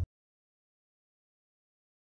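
Dead digital silence: the sound track is blank after a low hum cuts off abruptly at the very start.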